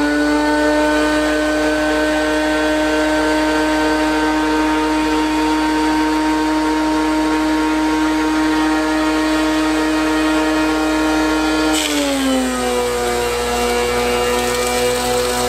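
DeWalt DW735 thickness planer fitted with a Shelix helical insert cutterhead, running on its finishing setting with a loud, steady whine. About twelve seconds in, a board feeds in: the motor's pitch drops under the load and a rush of cutting noise joins the whine.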